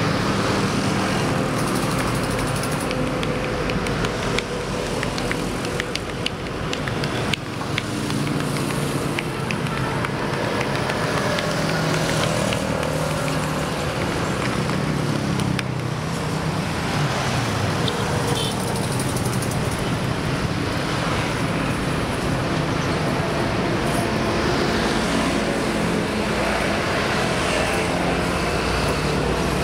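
Steady roar of heavy highway traffic close by, with cars, buses and trucks passing and engine notes rising and falling. A run of light clicks comes between about four and eight seconds in.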